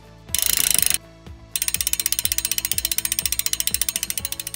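Background music with a steady beat, over a cartoon engine sound effect for a small toy vehicle. A short hissing burst comes first, then a fast, even mechanical rattle begins about a second and a half in and fades out near the end as the vehicle drives off.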